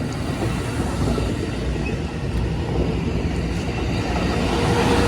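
Amtrak passenger train pulling out and rolling past, its cars' wheels making a steady rumble on the rails.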